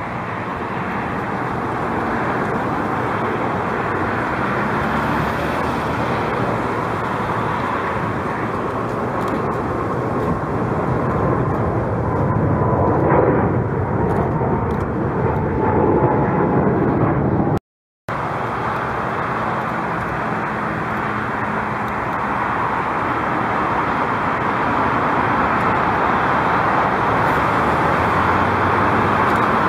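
Twin-engine jet airliners taking off, their engines at takeoff power giving a steady loud roar, with a faint slowly falling whine through the middle. The sound breaks off for a moment just past halfway, then another jet's roar builds toward the end.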